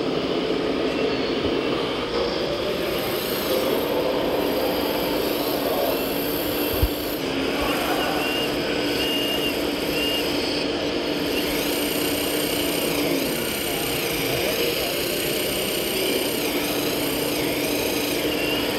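Hydraulic pump of a scale RC Liebherr 960 excavator whining steadily as the boom and bucket move, its pitch wavering as the load changes, with a single sharp knock about seven seconds in.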